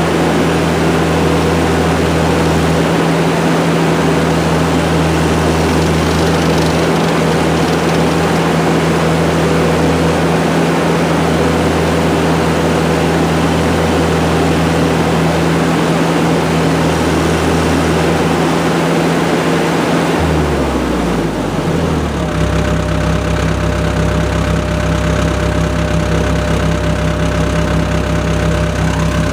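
ASV compact track loader's diesel engine running steadily at working revs, then throttled down about two-thirds of the way through, its pitch falling and settling to a lower idle.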